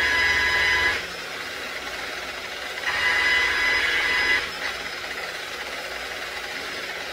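Motor-driven cotton buffing wheel polishing an aluminium rocker box. Its whine rises loud as the part is pressed to the wheel, drops about a second in, comes up again for a second and a half near the middle, then settles to the wheel spinning freely.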